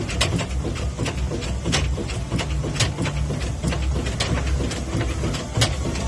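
Fowler steam ploughing engine at work: a low rumble with irregular mechanical clanking and ticks.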